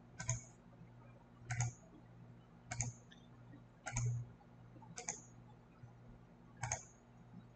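Computer mouse clicking: about six single, sharp clicks spaced roughly a second apart.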